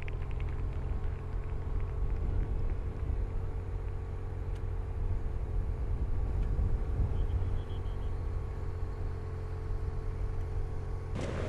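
Steady engine drone from a camera motorcycle riding alongside a cycling peloton, over heavy low wind rumble. The sound changes abruptly near the end.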